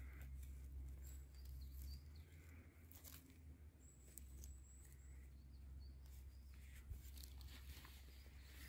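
Quiet forest ambience: a few faint, thin, high-pitched bird calls over a steady low rumble on the microphone, with light rustling and snapping of leaf litter and twigs as a mushroom is picked from the forest floor.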